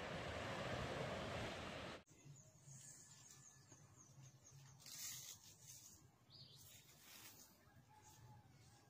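Steady rushing outdoor noise that cuts off abruptly about two seconds in, then near silence with a few faint, brief high-pitched sounds.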